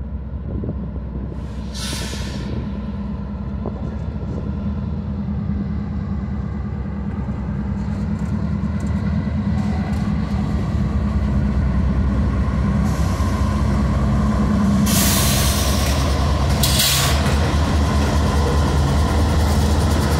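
Norfolk Southern diesel locomotives approaching and passing close by, their engines running with a steady low drone that grows louder. Short bursts of hissing air come about two seconds in and twice more in the last third.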